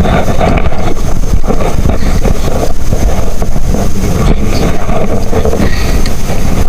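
Strong wind buffeting the microphone: a loud, ragged, low rumble with no breaks.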